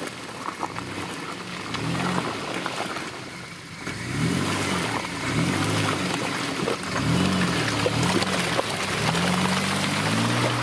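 Mitsubishi Pajero Sport's engine revving up and down as it churns through deep mud, with mud splashing off the tyres. The revs rise and fall about once a second from about four seconds in.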